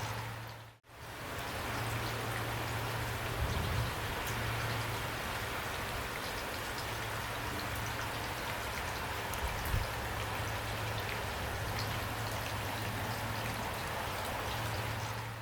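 Heavy rain falling steadily, a dense even patter. It briefly fades out and back in about a second in, and there are two louder low thuds partway through.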